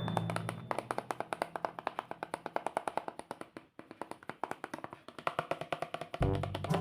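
Background music: a quick, even run of short tapped or plucked notes, fading thinner midway, with a fuller, bass-heavy part coming back in near the end.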